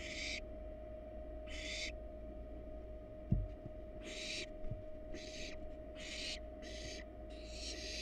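Barn owl nestlings giving short rasping hisses, the snoring begging call of barn owl young, repeated about once a second and coming faster near the end. A single low thump about three seconds in.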